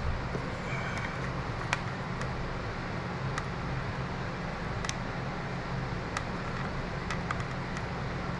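A steady low machine hum, with a few faint light clicks of small parts being handled.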